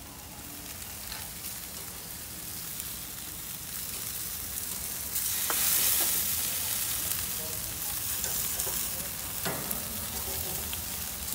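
Marinated chicken pieces sizzling on the grates of a gas grill set to low flame: a steady hiss that grows louder about five seconds in.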